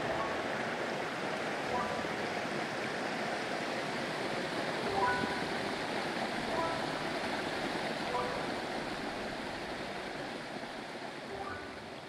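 Steady rush of a hot-spring mountain stream and its cascades, with soft background music notes sounding every second or two; the water fades a little near the end.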